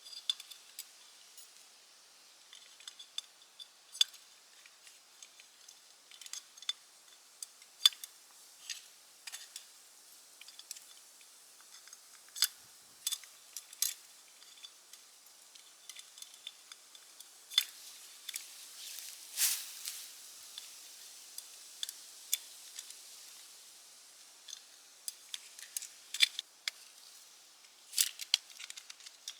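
A series of small, sharp clicks and ticks at irregular intervals, with one louder, longer scrape-like noise about two thirds of the way through.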